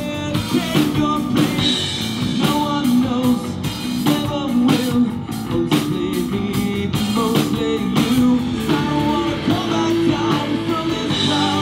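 Live rock band playing: electric guitar and bass over a drum kit, with a singer at the microphone.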